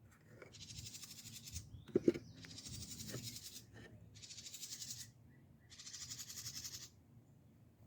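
A nesting bird inside a birdhouse hissing four times, each hiss about a second long, as a threat display at the disturbance. A short knock comes about two seconds in.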